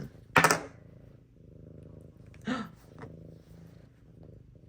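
A domestic cat purring steadily and close by, in a low rumble that pauses briefly now and then. A loud short sound comes about half a second in, and a brief voiced sound comes about halfway through.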